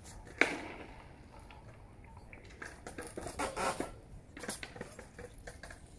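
Mountain bike being ridden and stunted on pavement: one sharp metallic clack about half a second in, then tyre scuffs and rattling from the bike.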